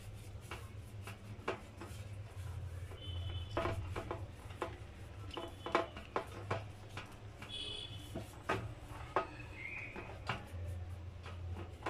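A bare hand rubbing cooking oil over a metal baking tray: soft rubbing with scattered small clicks and taps against the tray.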